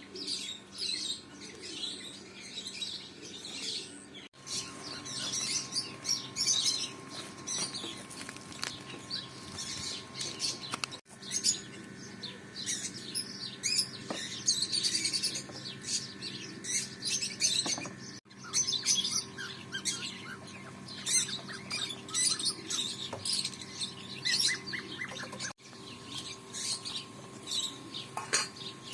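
Small birds chirping and twittering in dense, overlapping calls over a faint steady hum. The sound drops out for an instant three or four times, about every seven seconds.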